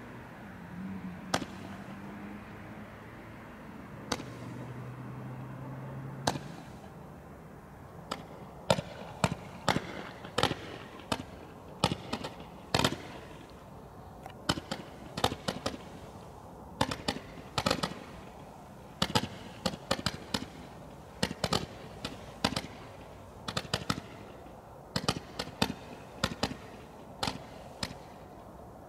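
Consumer fireworks going off: a long run of sharp cracks and pops, irregular and often several in quick succession, starting about eight seconds in.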